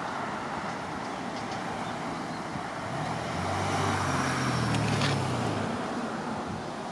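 A motor vehicle passing: a low engine hum swells through the middle and fades again, over steady outdoor background hiss.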